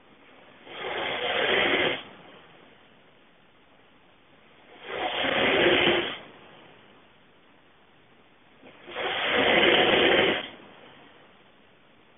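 Loud snoring of a sleeping person: three snores about four seconds apart, each lasting a second or so, with quiet breathing between.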